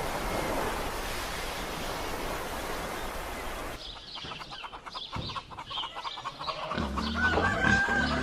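Chickens clucking, with a rooster's crow. The first four seconds hold a steady hiss; the clucking comes in after that.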